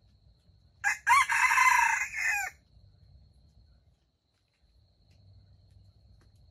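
A red junglefowl rooster crows once, about a second in. The crow is short, lasting under two seconds.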